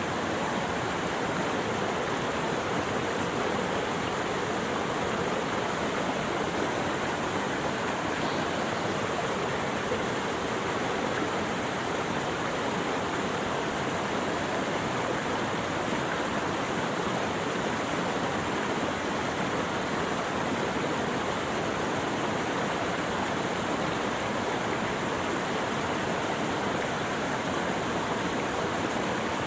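Running water rushing steadily, an even unbroken wash of sound.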